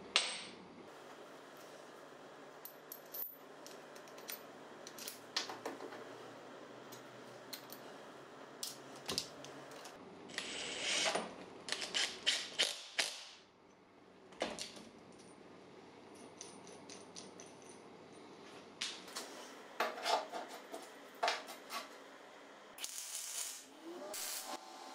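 Scattered light metallic clinks and clicks of small metal parts and tools being handled, some in quick runs, over a faint steady hum.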